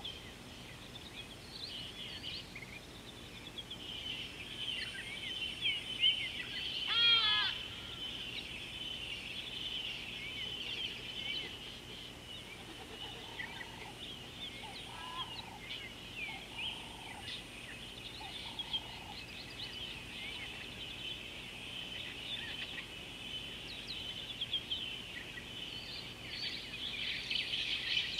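Wild birds calling: many short high chirps over a steady high-pitched chorus, with one louder rapid trilled call about seven seconds in and a few short, lower notes midway.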